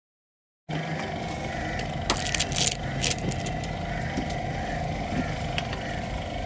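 A steady mechanical hum, like an engine running, starts suddenly about a second in. A short burst of sharp clicks and rustling comes about two seconds in.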